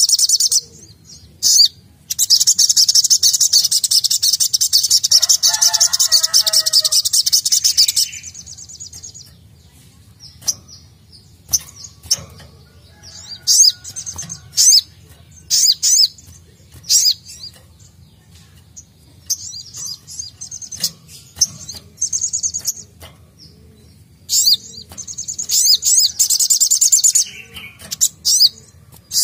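A sogok ontong (sogon) sunbird singing: sharp, high chirps scattered throughout, broken by a long, rapid high trill lasting about six seconds starting about two seconds in, and a shorter trill near the end.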